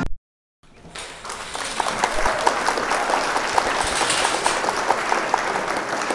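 Audience applause: dense, even clapping that fades in after a brief moment of silence and holds steady.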